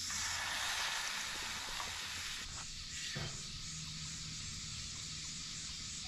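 Beaten egg sizzling on a hot griddle plate as it is poured on and fried, a steady hiss that thins out about two and a half seconds in.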